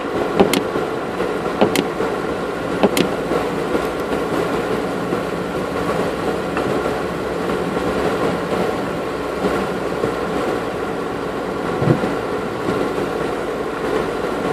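Off-road 4x4 crawling along a muddy track, heard from inside the cabin: a steady engine and drivetrain drone with a high-pitched whine. Three sharp knocks come in the first three seconds, and a dull thud about twelve seconds in, as the vehicle jolts over ruts.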